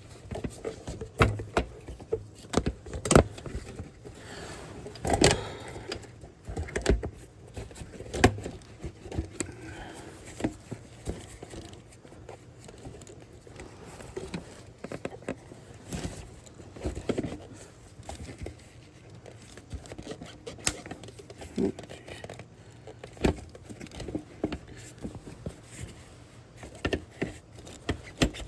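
Irregular clicks, knocks and light rattles of parts and tools being handled while refitting pieces on a pickup, scattered through the whole stretch.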